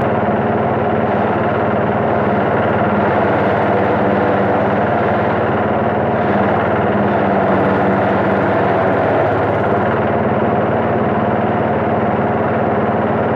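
Engine-driven forage chopper running steadily, its engine drone mixed with the whirr of the cutter and blower as chopped corn is blown out through the discharge spout. The pitch sags briefly about nine seconds in.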